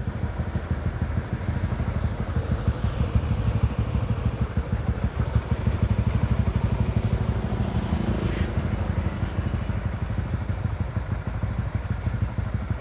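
Honda Winner X (DOHC) and Yamaha Exciter 155 VVA (SOHC) single-cylinder motorcycle engines idling steadily together while warming up, with a brief swell about eight seconds in.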